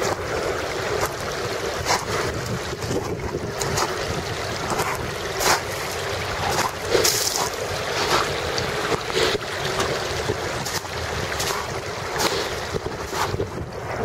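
Footsteps crunching over beach stones and pebbles, roughly one a second, over a steady rush of wind on the microphone.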